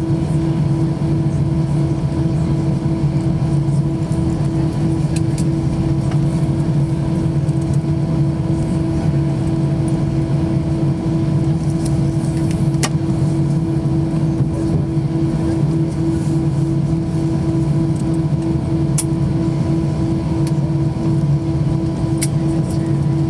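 Airbus A319 cabin noise while taxiing after landing: a steady low engine drone at idle, with a throbbing hum and a few faint clicks.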